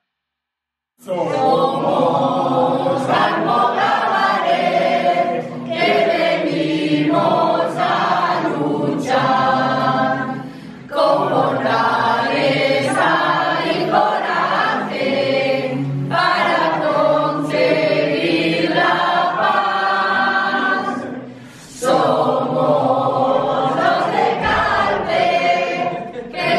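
A large mixed group of men and women singing a fiesta song together in phrases, with short breaths between them. The singing comes in after about a second of silence.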